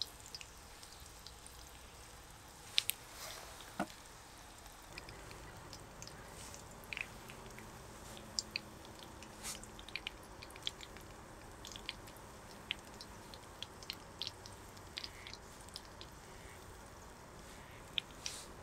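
Onion rings deep-frying in oil in a miniature stainless steel pan: a faint steady sizzle with scattered crackles and pops, and a few sharper clicks of metal tongs against the pan.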